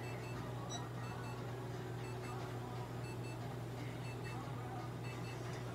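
A therapy unit's console beeps while its handheld probe is held against a cat during treatment: short electronic beeps about once a second, alternating between two pitches, over a steady low hum.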